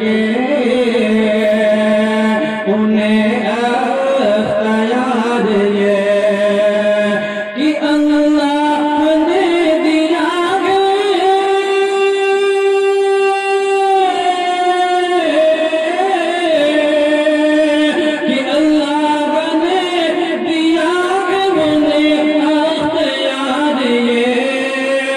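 A man singing a naat solo into a microphone, in drawn-out, ornamented lines with long held notes; one note about halfway through is held for nearly three seconds.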